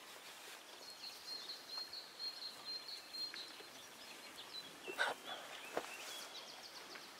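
Quiet outdoor ambience with a thin, high steady trill lasting a couple of seconds, then two sharp clicks about five and six seconds in.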